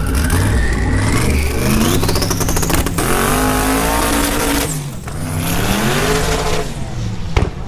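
Twin-turbo drag car at the starting line building boost, with a rising turbo whistle over a rapid crackle. About three seconds in it launches at full throttle, the engine note climbing, dipping briefly at an upshift, climbing again, then fading as the car pulls away down the track.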